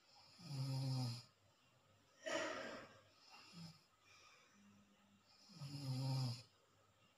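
A person in deep sleep, snoring: two snores about five seconds apart, with a noisy breath out between them.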